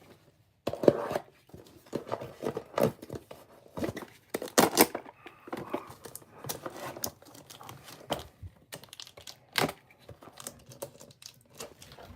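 A package being cut and torn open with a cutter: irregular tearing, scraping and crinkling of tape and wrapping, with sharp clicks throughout.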